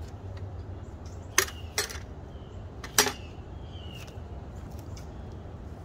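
Steel ammo-can lid being handled and set down, clanking three times: two sharp metal knocks close together about a second and a half in, then one more about three seconds in.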